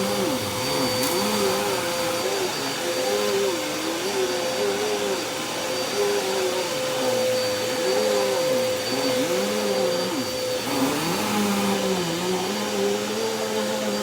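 Dirt Devil Breeze cyclonic upright vacuum running steadily while it picks up shredded paper. It has a steady motor tone, with lower tones that rise and fall every second or two.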